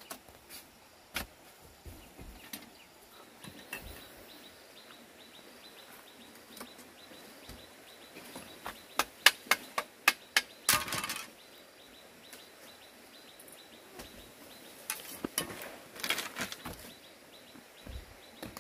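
Scattered sharp knocks, with a quick run of about six, roughly three a second, around the middle, a short noisy rush just after, and another cluster of knocks later.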